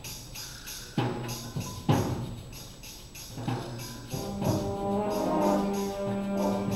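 Concert band playing a mambo: sharp accented percussion hits about a second apart over a steady tambourine shake, then the brass section comes in with sustained chords a little past halfway through.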